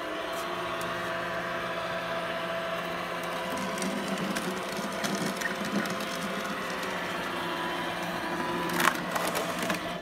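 iRobot Roomba Combo j5+ robot vacuum running steadily, its vacuum motor and brushes humming as it drives onto its self-emptying base. There is some rattling partway through and a sharp knock near the end.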